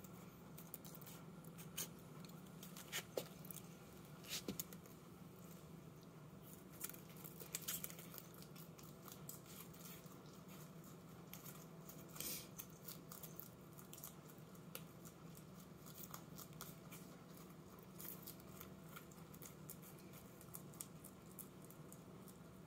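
Faint, scattered crisp clicks and crunches of a Flemish giant rabbit tearing and chewing kale leaves, over a steady low hum.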